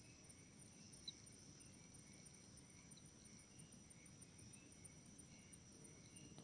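Faint, steady high-pitched trilling of crickets, with a brief tick about a second in.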